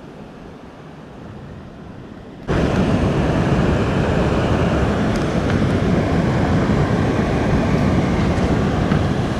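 Water rushing over rocks in a small waterfall cascade, a steady rush. A fainter hiss of flowing water becomes suddenly much louder and closer about two and a half seconds in.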